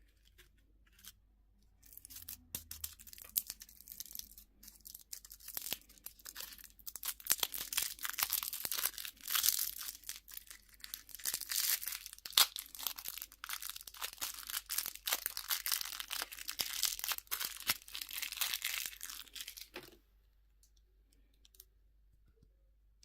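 A candy wrapper being torn open and crinkled by hand: a long run of crackles and rips that starts about two seconds in and stops a few seconds before the end.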